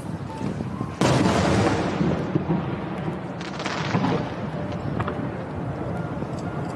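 Fireworks bursting: a sudden boom about a second in that fades out slowly, then a second burst a couple of seconds later.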